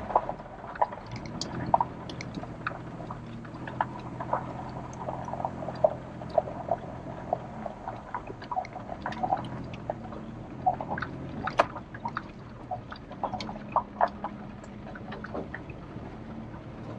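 A truck's engine running at low, steady revs as it crawls along a rough dirt trail, with frequent irregular small clicks, knocks and rattles as it rolls over ruts and gravel; one sharper knock comes about halfway through.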